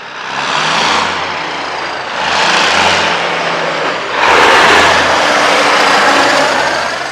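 1979 International Transtar cabover semi tractor with its Cummins 290 diesel, accelerating and driving past without a trailer. The engine note swells three times and is loudest in the second half.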